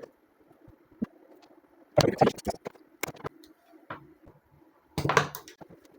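Light clicks and knocks from handling tools and battery parts during soldering of lithium cells, with the loudest clusters about two and five seconds in, over a faint steady hum.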